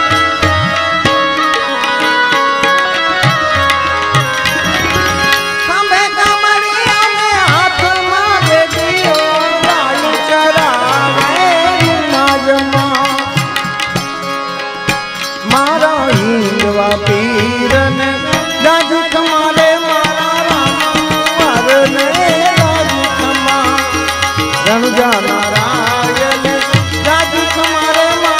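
Gujarati devotional bhajan music: tabla drumming under a winding, wavering melody.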